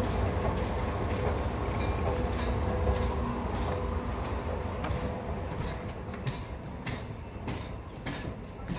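Department-store escalator running: a steady low mechanical rumble with a faint steady hum, fading after about five seconds as it is left behind. Light clicks come about twice a second and stand out more once the rumble fades.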